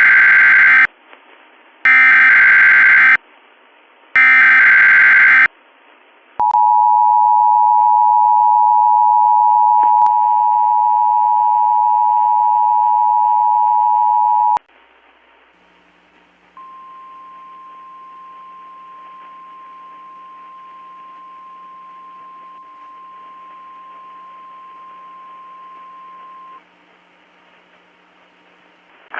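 Emergency Alert System monthly test tones. Three short, loud bursts of the SAME header data screech come first. The two-tone EAS attention signal follows for about eight seconds, then a quieter single steady tone for about ten seconds.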